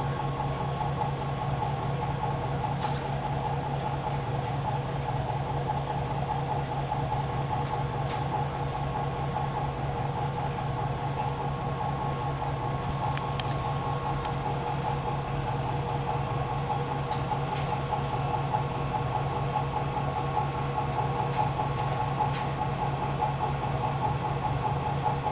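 Steady mechanical hum of the nanofiltration rig's feed pump keeping about 9.4 to 10 bar on the membrane module, with a few faint ticks along the way.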